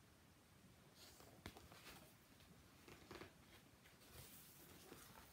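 Near silence: faint room tone with a few soft rustles and a small click about a second and a half in.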